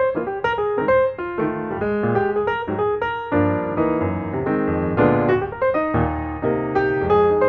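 Background piano music: a steady run of notes that fills out into fuller chords a little past the middle.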